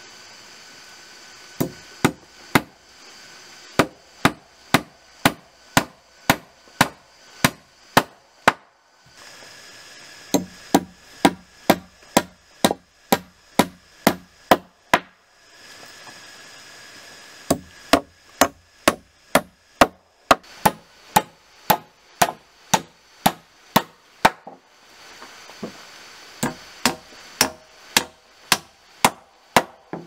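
Claw hammer driving nails into rough-sawn wooden floor planks: runs of sharp, evenly spaced blows, about two a second, broken by short pauses between nails.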